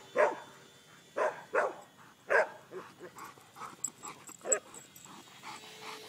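A dog barking in a string of single barks spaced irregularly, louder in the first half and fainter toward the end.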